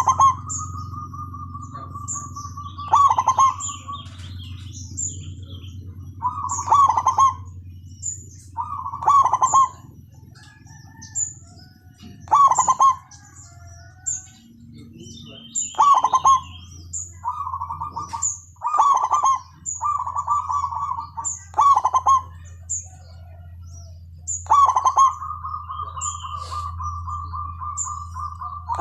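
Zebra doves calling: repeated short, bubbling coos about every two to three seconds, with a long drawn-out, churring call at the start and another near the end. Thin, high chirps from a smaller bird sound in between, over a steady low hum.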